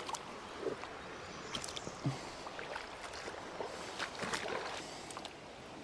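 Shallow creek water running over stones, with several short splashes as a wading angler's feet and hand move through the water and lift a small brown trout out.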